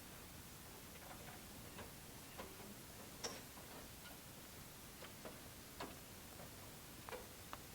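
Faint, scattered light clicks and ticks at irregular intervals over a quiet background.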